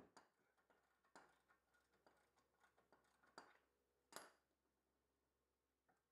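Near silence with a few faint metallic clicks and clinks of hand tools at a car's brake caliper, the loudest a short ringing clink about four seconds in.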